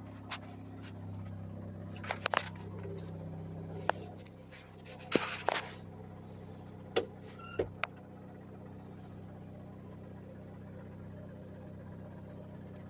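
Car engine idling steadily, with a few sharp, irregularly spaced clicks and knocks over it in the first eight seconds or so. The owner is trying to tell whether the engine's noise is variable valve timing noise or rod knock.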